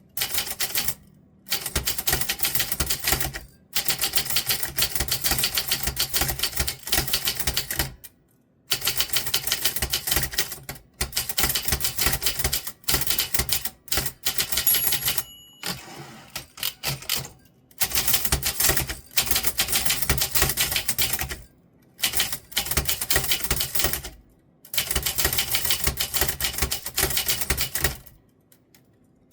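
Typewriter keys struck in quick runs of typing, broken by short pauses, with a brief ring about halfway through.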